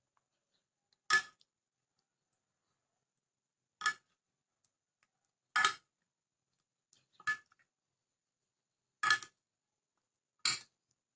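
A metal spoon clinking against a glass baking dish six times, about every one and a half to two seconds, as marinade is spooned over chicken pieces.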